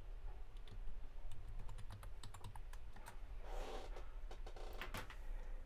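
Typing on a computer keyboard: a run of quick key clicks, with a short rustle about three and a half seconds in.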